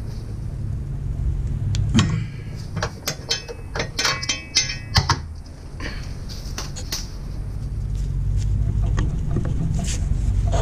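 Hand ratchet clicking on a socket extension as a nut at the rear shock mount is turned. The clicks come in quick runs, thickest about two to five seconds in, over a steady low hum.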